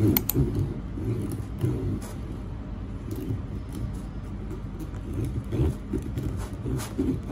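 Serrated bread knife sawing back and forth through the hard, crunchy crust of a tough sourdough loaf, a rough rasping with small crackles from the crust.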